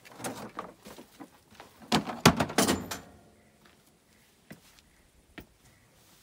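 Clanking and scraping of metal parts being handled on an Allis-Chalmers HD21 dozer: a quick run of knocks and a scrape, loudest about two to three seconds in, then two single clicks.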